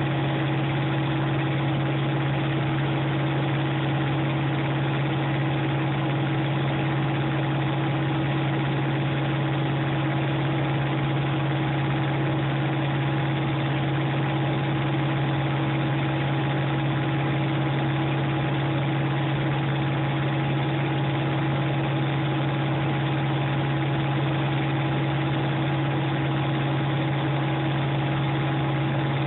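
Thermo King SB-III Whisper trailer refrigeration unit running, a steady drone with a strong low hum that holds at one speed throughout.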